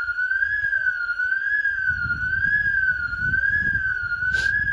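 Electronic alarm siren sounding a steady high warble that rises and falls about twice a second, which a bystander puts down to someone touching the glass. A low rumble joins about two seconds in, and a short sharp click comes near the end.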